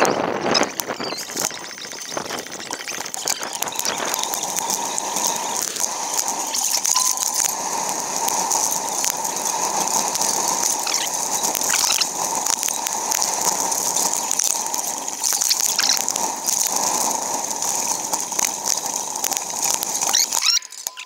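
Sped-up wind and road noise from a bicycle ride: a steady rushing hiss with a faint steady tone and scattered clicks and rattles, dropping off sharply near the end.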